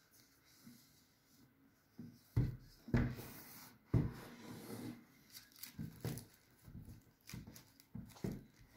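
Cardboard MacBook Air box being handled and turned over on a wooden tabletop: a run of soft knocks and scrapes starting about two seconds in, with a stretch of plastic wrap rustling about three seconds in.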